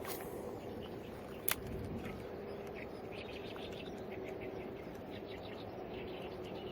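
Birds chirping faintly over a steady background hum, with one sharp click about a second and a half in.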